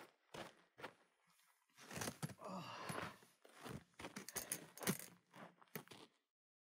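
Quiet handling noises of food and cooking gear: a string of short clicks, clinks and rustles that cuts off abruptly about six seconds in.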